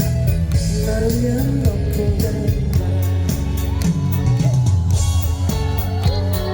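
Live pop band music played through a stage sound system: a steady drum and cymbal beat, a full bass line, and a gliding melodic lead line over the top.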